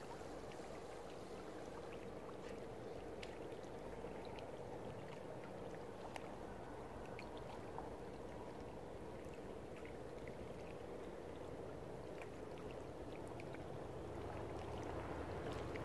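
Small waves lapping steadily on a stony reservoir shore, a faint even wash with scattered light ticks.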